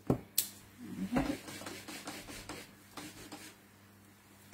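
A couple of sharp clicks as a clear acrylic stamp block is lifted and set down, followed by soft rubbing and shuffling of paper and card on the craft mat.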